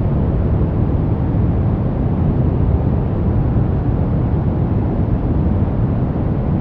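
Brown noise: a steady, deep rush with most of its weight in the low end and little hiss up top, unchanging throughout.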